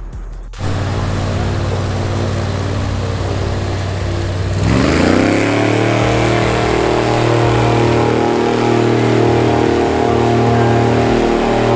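An engine running steadily, then revving up a little under five seconds in, its pitch rising and holding at a higher speed.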